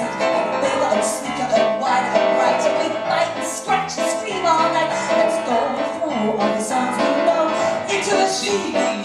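A woman singing into a microphone in a live cabaret number, accompanied by piano.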